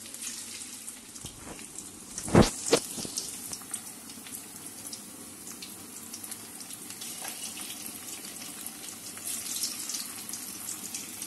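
Battered chicken pieces deep-frying in hot oil in a metal wok: a steady sizzle with small crackles, broken by two sharp knocks close together about two and a half seconds in.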